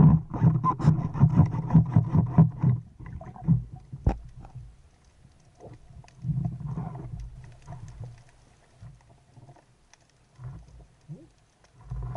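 Underwater movement noise heard through a camera's waterproof housing: a muffled low rumble with many small clicks and knocks as a diver swims and handles his speargun. It is loudest in the first few seconds, then comes back in shorter bursts.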